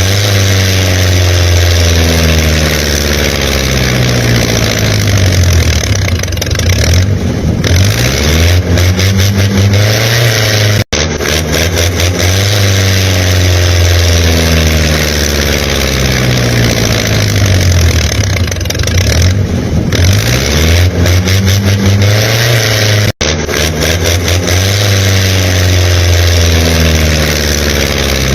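Engine sound revving up and down over and over, with two brief sudden cutouts about eleven and twenty-three seconds in, as if a recorded engine sound were looped.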